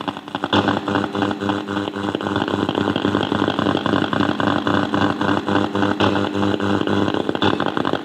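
A radio buzzing: a steady hum with a rapid, rough crackle running through it.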